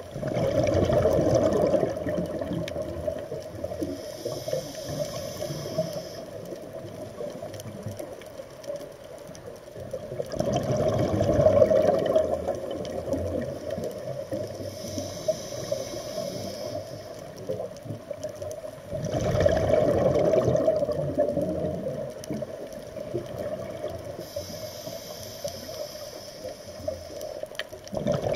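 A scuba diver's regulator breathing underwater: a loud bubbling exhalation about every nine seconds, each followed a few seconds later by a softer, shorter hiss of inhaling.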